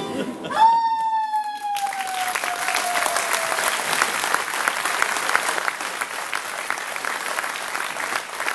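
Audience applause, opening with one high, drawn-out whoop that slides slowly down in pitch over a few seconds before the clapping takes over.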